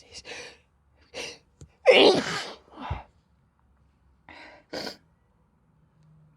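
A person sneezing once, hard, about two seconds in, with quick breathy intakes before it. Two short sniffs follow a couple of seconds later. These are head-cold sneezes and sniffles.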